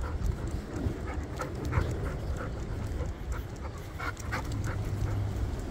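Dog panting in quick, irregular breaths, about three a second, with a low rumble underneath.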